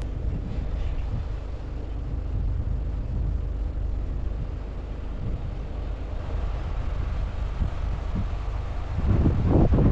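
Diesel engine of heavy earthmoving machinery running steadily with a low rumble, and wind buffeting the microphone near the end.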